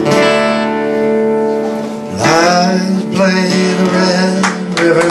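Solo acoustic guitar playing the opening of a folk song, its notes ringing and overlapping.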